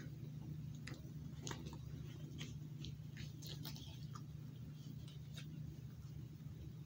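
Paper wrapper of a small chocolate snack cake crinkling in irregular little crackles as it is peeled open by hand, over a steady low hum.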